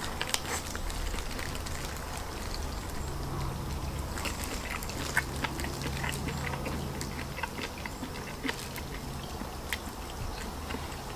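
A man chewing and gnawing spicy stir-fried duck meat off the bone, with scattered small mouth clicks and smacks over a steady low hum.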